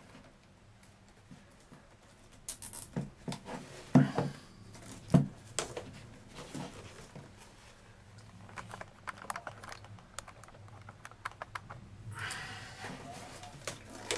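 Handling of a nylon cable tie around a corrugated plastic vacuum fill tube and cloth bag: scattered clicks and a few sharp knocks, then a run of quick ticks as the tie is pulled tight. Fabric rustles near the end.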